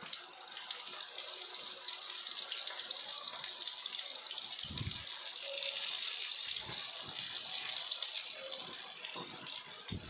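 Seer fish steaks shallow-frying in oil in a nonstick pan, sizzling steadily as they near the end of cooking. A few soft knocks come from a silicone spatula pressing the fish against the pan.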